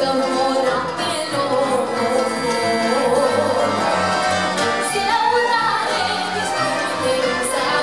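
A young girl singing a Romanian folk song into a microphone, accompanied by a folk orchestra, her voice carrying a gliding melody over the band.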